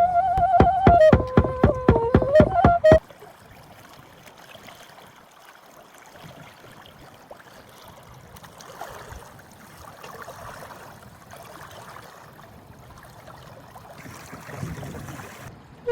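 Flute music over a regular beat that cuts off abruptly about three seconds in, followed by faint outdoor ambience of water and a boat, with no clear tones.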